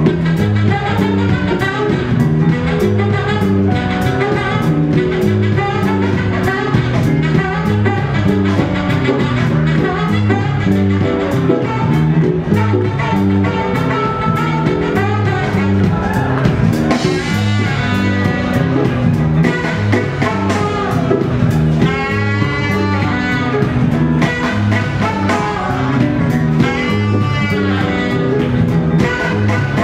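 Live funk band playing a steady groove with drums and bass, a saxophone soloing over it. The lead line wavers and bends more strongly in the second half.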